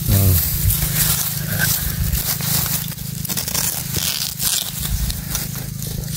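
A knife blade scraping and cutting at the base of a bamboo shoot, with dry grass and leaves crackling and rustling in many short, sharp clicks.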